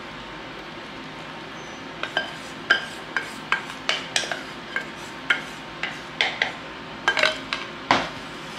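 Buffalo sauce being scraped and knocked out of a stainless steel pot onto chicken wings. A run of irregular sharp metallic clinks, each briefly ringing, starts about two seconds in over a faint steady hum.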